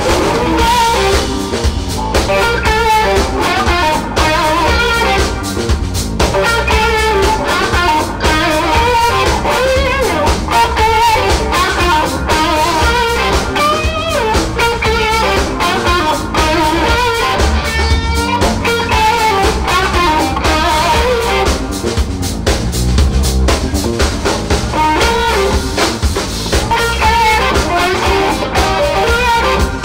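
Live blues band playing an instrumental passage: two electric guitars play lead lines with bent, wavering notes over a steady drum kit.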